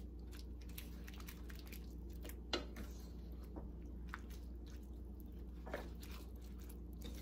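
A wooden spoon stirring a thick chicken and sweet potato curry in a stainless steel pan: faint wet squishing with scattered light scrapes and taps against the pan, over a steady low hum.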